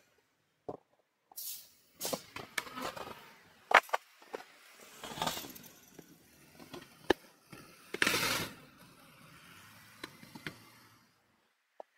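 Bicycle riding along a city road: tyres rolling and the bike rattling, with sharp knocks over bumps and rushes of noise. It starts about a second and a half in and dies away near the end.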